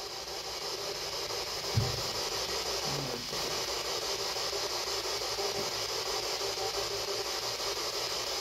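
Spirit box sweeping the radio band, giving a steady hiss of static, with a brief low thump about two seconds in.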